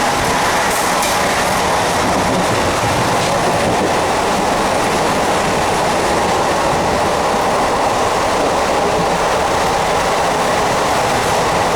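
MEMU electric train running along the track, a loud steady rumble and rattle of wheels on rails.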